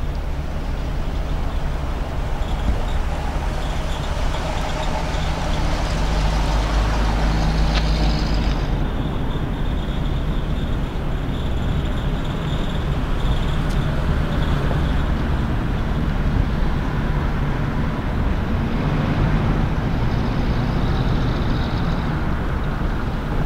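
1951 Buick Roadmaster's straight-eight engine running steadily with a low exhaust note as the car is driven slowly at low speed.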